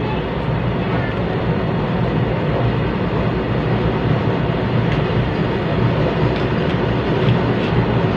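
Steady, loud rushing noise with a low hum underneath, unchanging throughout, and a few faint ticks in the second half.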